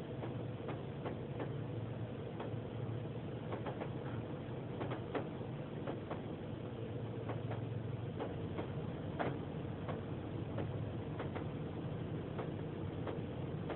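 Water drops ticking irregularly on a car's roof and windshield, heard from inside the cabin, over a steady low hum.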